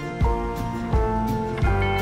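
Background music: acoustic guitar with held notes and a steady beat.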